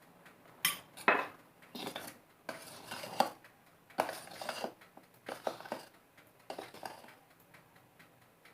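Steel spatula scraping and clinking against a mixing bowl while folding flour into a cake batter, in a string of irregular strokes.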